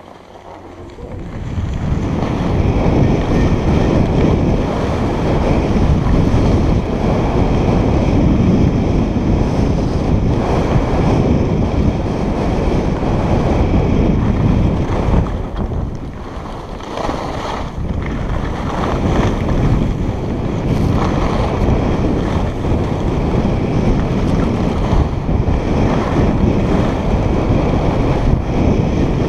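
Wind buffeting a helmet-mounted camera's microphone as a skier runs downhill. It rises about a second in as the skier picks up speed and eases briefly about halfway.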